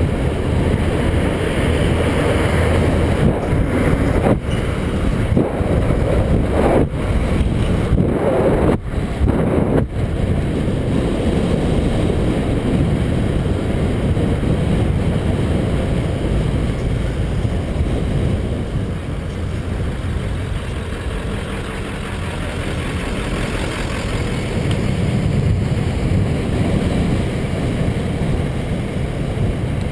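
Motorcycle riding at road speed: steady engine rumble mixed with wind noise on the mounted camera's microphone. Several short knocks come between about three and ten seconds in.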